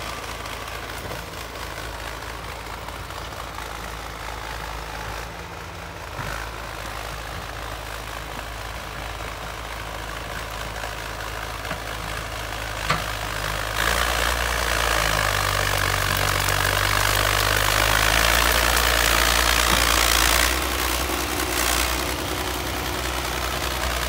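Crawler bulldozer's diesel engine running as the dozer pushes soil and stumps with its blade. Just past halfway the engine grows louder and changes pitch as it works harder for several seconds, then eases back near the end.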